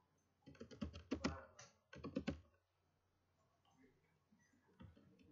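Computer keyboard being typed on, faint: two quick runs of keystrokes, a pause of about two seconds, then more keystrokes near the end.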